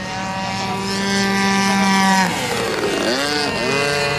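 Radio-controlled model airplane's engine running at a steady high pitch and growing louder, then dropping sharply in pitch as it passes a little after two seconds in. The pitch then dips and rises a few times before settling steady again.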